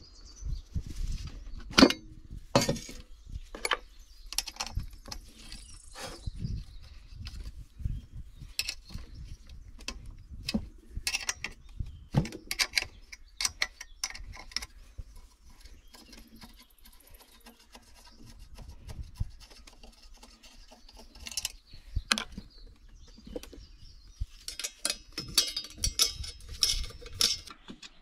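A screwdriver and other hand tools clinking, knocking and scraping on the metal parts of a small two-stroke cultivator engine as it is taken apart. The knocks come at irregular intervals and crowd together near the end.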